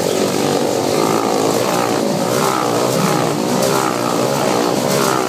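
Motorcycle engines running hard inside a steel-mesh globe of death, their pitch rising and falling in quick waves, two or three a second, as the riders loop around the globe.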